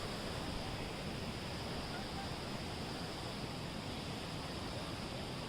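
Steady rushing of flowing water from a waterfall and stream, an even hiss with no breaks.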